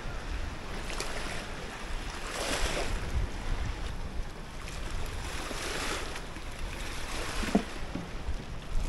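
Wind buffeting the microphone over water lapping at the shore, the noise swelling a couple of times.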